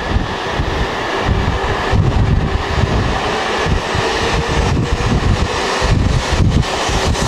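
Shinkansen train moving slowly alongside the platform: a steady running rumble with a faint, even hum, and wind buffeting the microphone.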